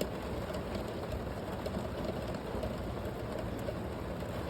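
Rain falling steadily on the roof of a van, heard from inside: a low, even rumble with a few faint sharp drop ticks.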